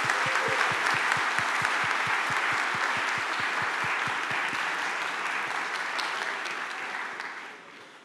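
Audience applause, a dense clapping with a nearer clap about five or six times a second underneath, dying away in the last second.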